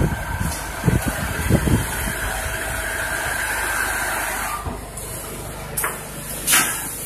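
Industrial quilting-line machinery running steadily: the multi-needle quilting machine with its conveyor belts, and sewing machines. A few low knocks come in the first two seconds, and two sharp clicks come near the end.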